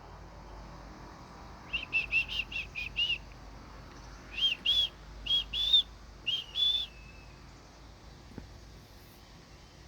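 A hawk calling: a quick run of about seven short, high calls, then after a pause about six longer calls, each slightly rising and falling in pitch.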